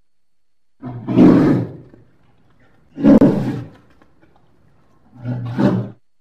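Three harsh roars from a large animal, about two seconds apart, each lasting about a second.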